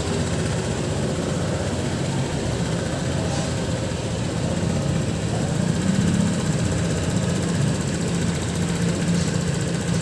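Honda Click 150i scooter's single-cylinder engine idling steadily.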